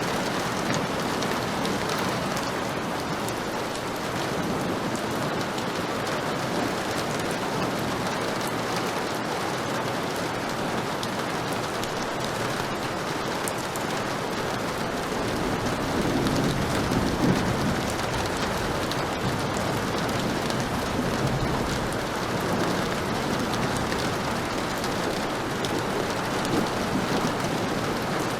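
Heavy rain falling steadily, with a low rumble of thunder swelling about halfway through.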